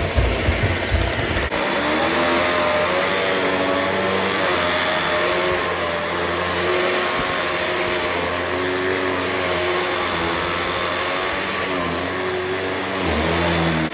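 Shark Detect Performance Lift-Away upright vacuum running with a steady motor whine. About a second and a half in, low thumping gives way to a hum that rises and falls slightly in pitch as it cleans.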